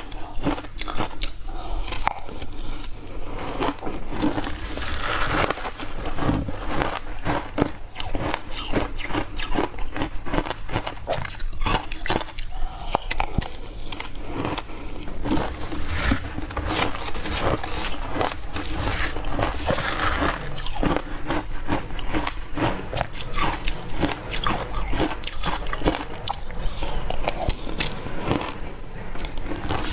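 Ice being bitten and crunched between teeth: a dense, continuous run of crisp cracking crunches.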